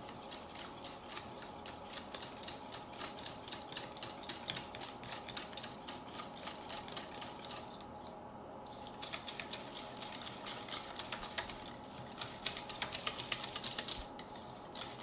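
Wire whisk beating pumpkin pie filling in a stainless steel bowl: rapid clicking of the wires against the metal, with a brief pause about eight seconds in.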